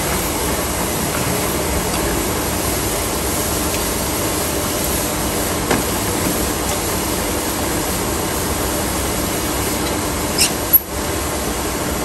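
Pillar drill running steadily, its bit boring into a metal piece clamped upright in a machine vise. A sharp click near the end.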